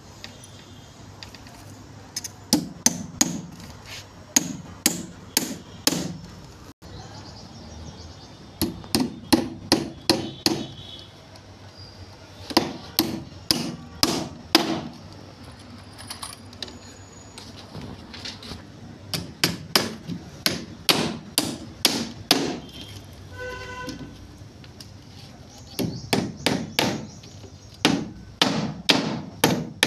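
Claw hammer driving nails into the timber boards of a wooden footing formwork box. The blows come in runs of about two to three a second, with short pauses between nails.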